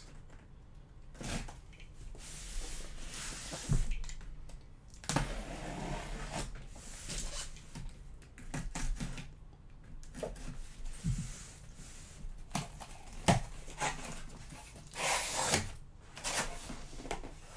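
A cardboard shipping case being handled and opened: cardboard and packing tape rustling and scraping in several longer stretches, with a number of sharp knocks and taps in between.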